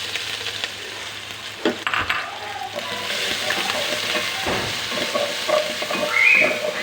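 Food sizzling in hot oil in a pan while being stirred, with a few sharp clicks of the utensil against the pan about two seconds in.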